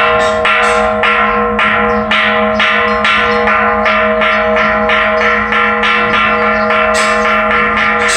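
Buddhist temple bells in a bell tower being struck in quick succession, about two strikes a second. Each strike lands over the steady ringing of the earlier ones, so the tones overlap in one continuous peal.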